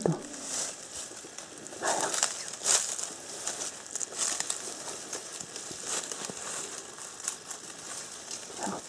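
Dry leaves, twigs and grass stems rustling and crackling in irregular bursts as someone pushes through forest undergrowth.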